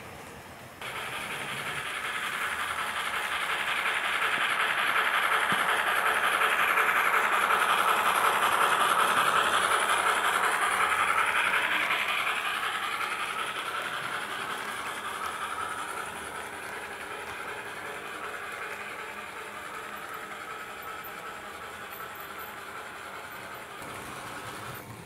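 HO scale model passenger train running past on its layout track. The sound starts abruptly about a second in, grows louder to a peak about eight to ten seconds in, then fades.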